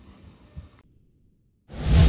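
Faint background noise that cuts off into a second of silence, then a loud whoosh sound effect swells up near the end, the opening of a news logo sting.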